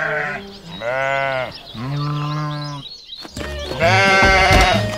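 Sheep bleating: three long bleats one after another, the last one the loudest.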